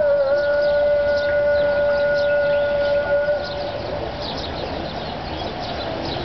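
A muezzin's call to prayer: the voice holds one long note for about three and a half seconds, then fades. Small birds chirp throughout.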